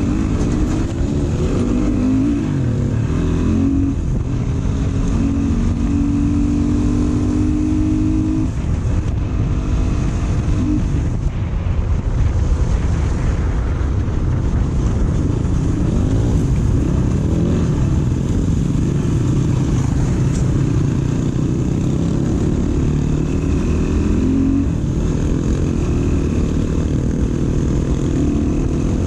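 Off-road dirt bike engine running under riding load, its pitch rising and falling as the throttle opens and closes, with a steadier stretch held for a couple of seconds about six seconds in.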